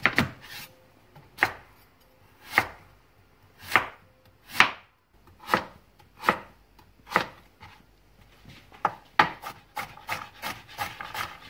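Chef's knife cutting through a celeriac (celery root) on a cutting board: single slow cuts about once a second, each ending in a knock on the board, then quicker, closer chops near the end as the slices are diced into small cubes.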